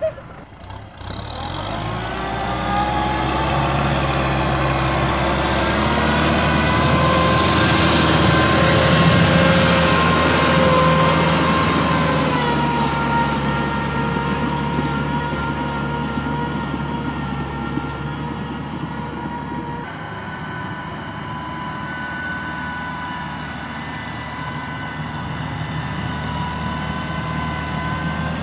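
Kubota M6040 tractor's diesel engine running under load as it drives a rotary tiller through wet paddy mud. The engine note climbs over the first couple of seconds, holds steady, and eases slightly about twelve seconds in.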